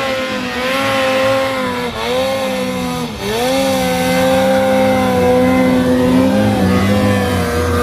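Mountain snowmobile engine held at high revs under load as the sled climbs a steep chute in deep powder. The pitch dips briefly twice, about two and three seconds in, then holds steady.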